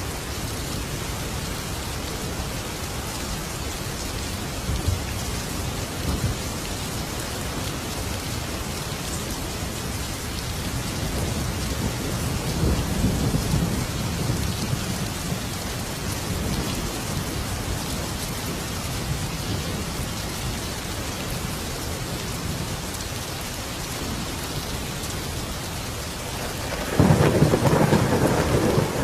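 Thunderstorm: steady heavy rain with low rolls of thunder a few times, and a sudden loud thunderclap near the end.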